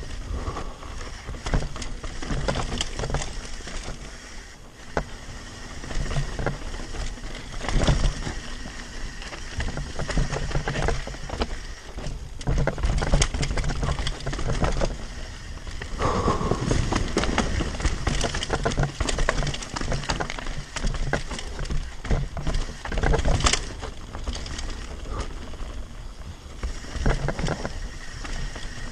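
Devinci Spartan carbon mountain bike descending a rough dirt trail, heard from a camera mounted on the rider: tyres rolling over dirt and stones, with the chain and frame clattering over the bumps.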